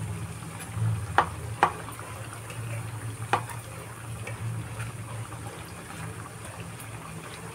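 Bread slices deep-frying in hot oil in a kadai, with steady bubbling and crackling. A metal spatula clicks sharply against the pan twice about a second in and once more around three seconds as the pieces are turned.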